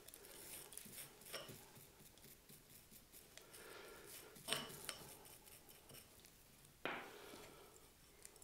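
Soft nylon brush scrubbing moss off a small bonsai trunk in faint, light scratching strokes, with a sharper click about four and a half seconds in. About seven seconds in, a sudden short scrape as the root ball is pulled free of its clay pot.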